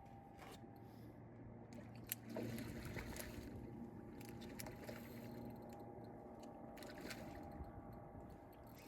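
Faint handling sounds on a small fishing boat: scattered clicks and knocks with one sharp tick about two seconds in, over a low steady hum that fades out after about six seconds.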